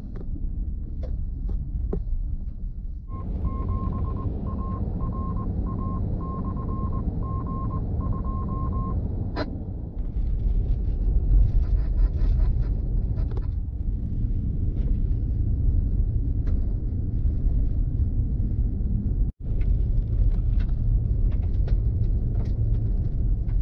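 Road and tyre rumble inside the cabin of an SUV driving on gravel and dirt roads, with scattered clicks. A short beep repeats about every three-quarters of a second for several seconds, starting about three seconds in.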